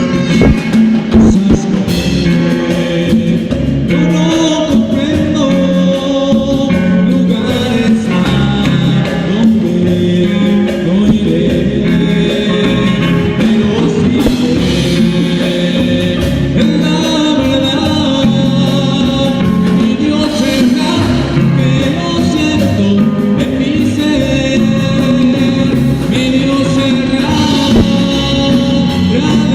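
A band playing and singing a gospel song, with guitar, bass and drums under a lead vocal.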